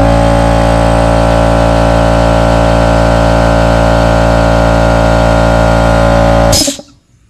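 Bostitch 6-gallon, 2 hp portable air compressor running loud and steady, its motor and pump giving an even hum, then shutting off abruptly near the end.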